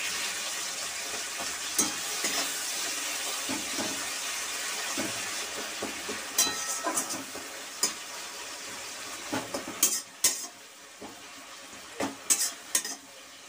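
Tomatoes and whole spices sizzling in hot oil in a metal kadai, stirred with a flat metal spatula that scrapes and clinks against the pan now and then. The sizzle is steady at first and weakens in the second half.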